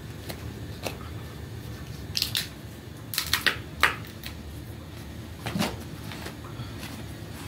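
Crisp, dry flatbread crackling as it is torn apart by hand, in short clusters of sharp crackles about two, three and five and a half seconds in, the loudest near four seconds.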